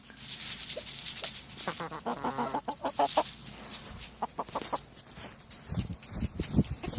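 Backyard chickens clucking, with a high hiss during the first three seconds and a run of low knocks near the end.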